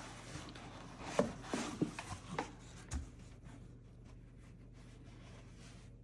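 Packaging being handled and torn open by hand: a run of short rustles and clicks in the first three seconds, then quieter handling.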